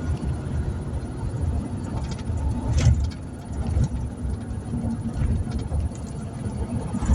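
Vehicle moving along a highway as it pulls over onto the shoulder: a steady low rumble of road and engine noise, with a brief louder noise near three seconds in.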